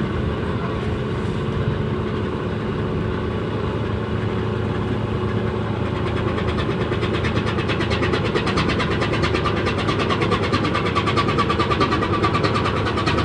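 Marine diesel engine running under load with a steady deep hum. About halfway through, a fast, even pulsing beat and a whine come in and grow louder as the engine works harder.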